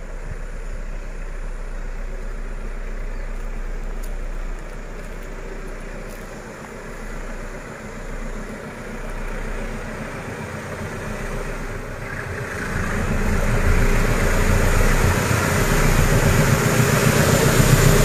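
KAI diesel-electric locomotive approaching along the track. Its engine runs steadily and grows clearly louder from about two-thirds of the way in as the train draws near.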